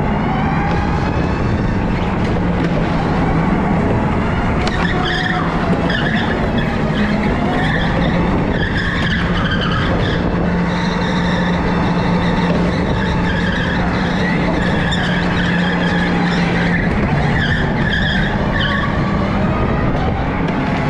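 Electric go-kart driving hard around a track: a steady low hum with a high whine that rises and falls with speed, and tyres skidding on the smooth floor through the corners.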